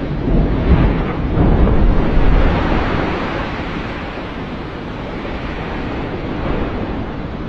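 Glacier ice calving: a wall of ice collapsing into the water with a deep rumble, loudest over the first two or three seconds, then a steady rushing noise of falling ice and churned water that slowly fades.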